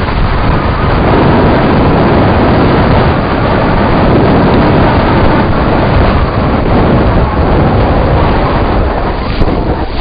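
Wind rushing over the microphone of a camera on a mountain bike riding fast downhill, mixed with the steady rumble and rattle of the bike over a rough dirt track.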